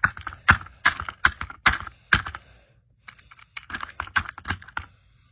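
A plastic toy bulldozer being smashed: six sharp blows land about every half second, then after a short pause come quicker, lighter clicks and knocks.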